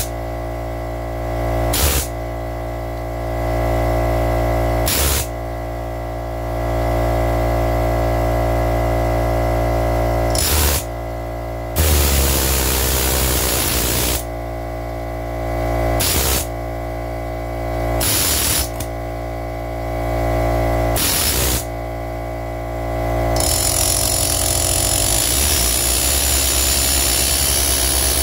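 Air compressor running steadily while a pneumatic air ratchet on the engine's crankshaft pulley fires in short repeated bursts, one of them lasting a couple of seconds. Near the end a continuous loud hiss of air starts.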